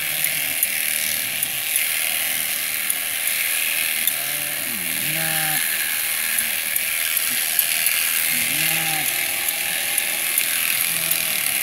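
Electric sheep-shearing handpieces running through fleece, a steady high buzz and clatter of the cutting comb with frequent small ticks.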